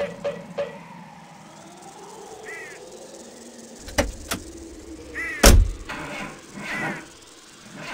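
Animated-film sound effects: a series of sharp clicks and knocks, the loudest a heavy thump about five and a half seconds in, mixed with several short squeaks.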